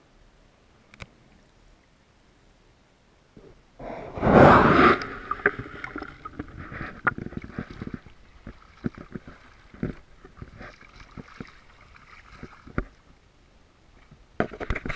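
Muffled underwater quiet, then a loud rush of splashing water about four seconds in as a waterproof camera breaks the surface of shallow sea water. After that come many small splashes and drips of water on the camera, with small waves at the shore and another loud splash near the end.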